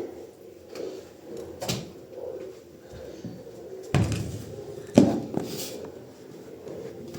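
Household clatter: a few separate knocks and thumps, the loudest about five seconds in, with lighter clicks between.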